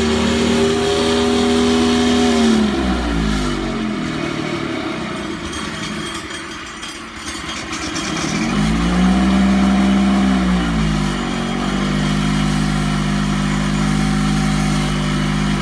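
Small gasoline engine of a yellow walk-behind landscaping machine running fast, then slowing a few seconds in. It revs up again about halfway through and drops back to a steady lower idle for the rest.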